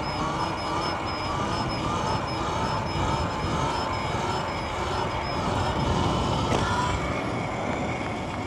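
Riding noise from an electric dirt bike on the move: wind rushing over the microphone and tyre hum, with a faint electric-motor whine that wavers slightly in pitch.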